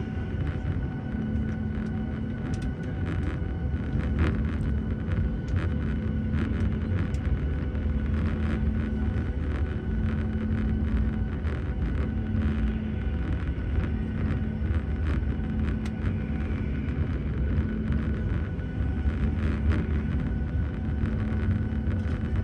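Airliner engine noise heard inside the passenger cabin: a steady deep rumble with a hum that swells and fades about every two seconds.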